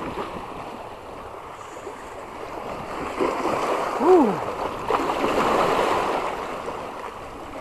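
Sea water washing and lapping at the shore, swelling for a few seconds past the middle. About four seconds in comes one short call that rises and falls in pitch.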